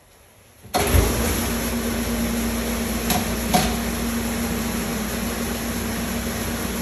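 CMA Model 180 high-temperature door-type dishmachine starting its wash cycle. The door comes down and, under a second in, the wash pump kicks in with a steady rush of spraying water over a motor hum. Two sharp clicks come about three seconds in.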